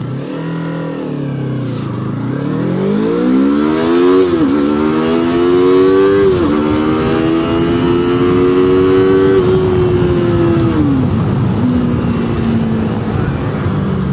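Yamaha R3's parallel-twin engine through its stock silencer, accelerating hard up through the gears. The note climbs, drops at upshifts about four and six and a half seconds in, and climbs again. It falls away as the throttle closes around nine seconds in, then settles to a low steady note.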